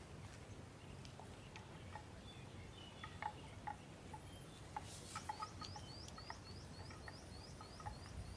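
Water buffalo cropping grass: scattered soft clicks of tearing and chewing. From about five seconds in, a bird repeats a short chirp about four times a second, over a faint steady insect hum.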